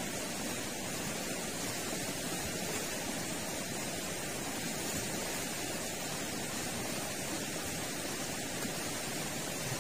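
Steady rushing of a river running high in flood: an even hiss with no breaks or distinct events.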